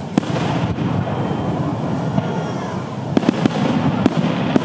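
Aerial firework shells bursting: one sharp bang just after the start, then a quick run of cracks and pops a little past three seconds in.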